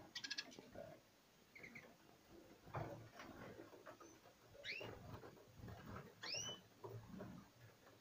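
Canaries and finch hybrids in an aviary giving short calls: a quick rattling chirp at the start and two sweeping call notes in the middle. Soft knocks and rustling run underneath.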